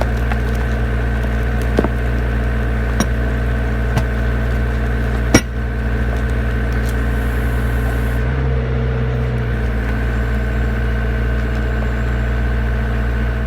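Hydraulic rock splitter's power unit running steadily while the concrete gives way in four sharp cracks over the first half, the last the loudest. About two-thirds of the way in, the machine's note briefly changes.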